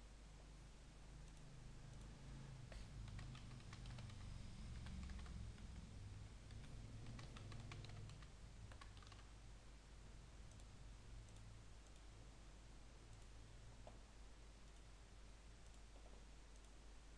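Faint computer keyboard typing and mouse clicks. Quick keystrokes cluster in the first half, then only a few scattered clicks follow, over a faint low hum.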